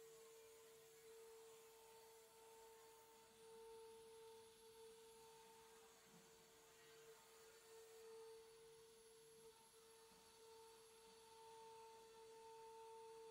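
Faint, steady whine from the CNC router's 3.5 kW air-cooled spindle as it engraves MDF. Two fainter high whines rise, hold and fall, about four and about nine seconds in.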